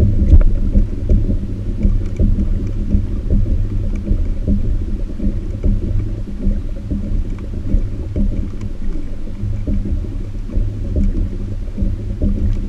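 Kayak under way: a steady, loud low rumble of water and wind noise on the boat-mounted camera's microphone, with a faint hum under it and scattered light ticks.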